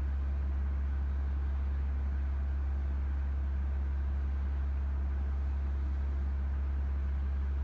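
An engine idling steadily: a constant low drone that does not change.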